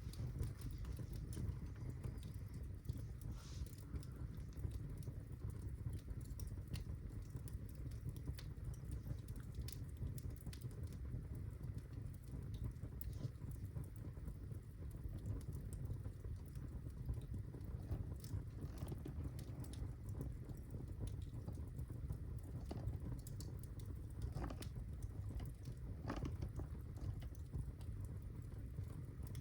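Birch logs burning in a fireplace, crackling with scattered pops and snaps over a steady low rumble of the flames.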